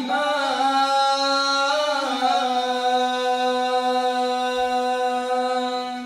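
Male Quran reciter chanting in the Moroccan Filali style into a hand microphone, holding one long steady note with a brief wavering turn about two seconds in.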